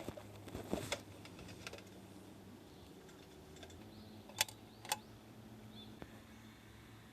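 Scattered light clicks and knocks: a cluster of them in the first second, then two sharp clicks about half a second apart a little past the middle, over a faint steady hum.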